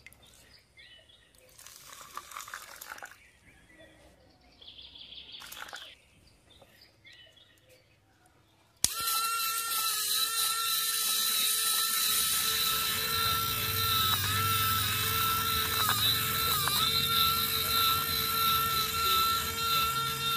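Small electric motor switched on with a click about nine seconds in, then running at speed with a steady high whine. Its pitch dips briefly three times near the middle.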